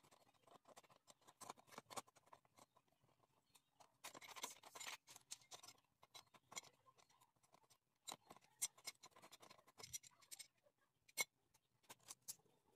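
Faint clicking and scraping of a hand tool working on the metal trim at the base of a camper door, with scattered sharp clicks and two longer scratchy stretches, about four seconds in and again around eight to ten seconds.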